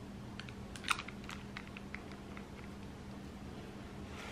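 A series of light clicks and ticks from handling a small cosmetic package or bottle, the loudest about a second in, over a faint steady hum.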